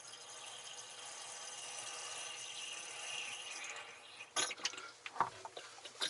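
Distilled water trickling from a plastic bottle into a cell of a flooded lead-acid starting battery, topping up a battery that had run low on water. The trickle runs steadily for about four seconds, then two short clicks follow.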